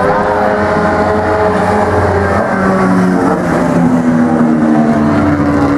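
Mini stock race car engines running at speed on the oval. Several engine notes are held and shift up and down as the cars go by.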